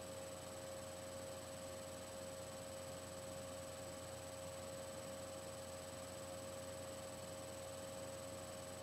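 Faint steady electrical hum, one even mid-pitched tone with a thin high whine above it over light hiss: room tone of the recording setup.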